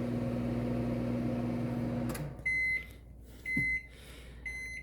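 Microwave oven running with a steady hum that stops with a click about two seconds in. Three short, high beeps about a second apart follow: the end-of-cycle signal that the cooking time is up.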